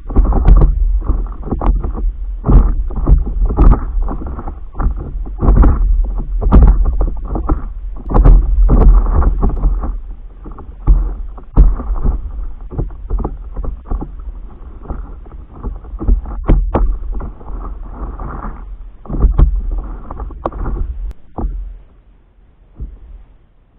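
Water slapping and sloshing against a stand-up paddleboard right under the microphone, in irregular splashy knocks over a heavy rumble of wind buffeting the microphone. It fades away near the end.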